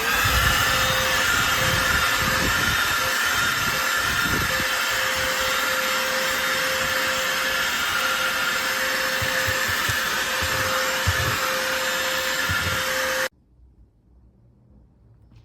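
Bosch UniversalVac 18 cordless 18-volt handheld vacuum running at a steady pitch with a whine over its rushing airflow. It spins up at the start and cuts off suddenly near the end.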